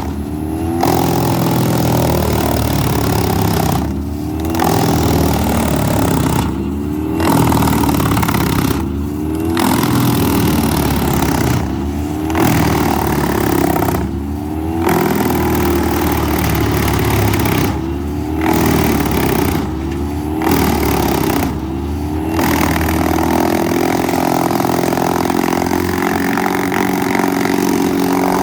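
Greenmech wood chipper running at full speed while branches are fed in and chipped. About eight times, every two to three seconds, the chipping noise drops away and the engine pitch dips and climbs back as each load goes through.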